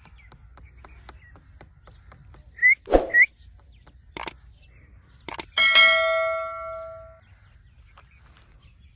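A small metal bell struck once, ringing and dying away over about a second and a half, the loudest sound. Short parrot chirps and two sharp squawks come about three seconds in, and two sharp clicks come just before the bell.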